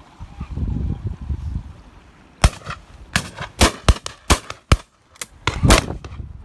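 A rapid volley of about ten shotgun shots, starting about two and a half seconds in, some close and loud, others further off, as birds are shot at overhead. A low rumble comes before the shooting starts.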